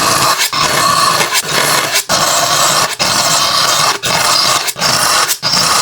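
Victorinox chef's knife drawn again and again through a pull-through sharpener set at 15 degrees: a rasping grind on each stroke, with short breaks between strokes, roughly one and a half strokes a second.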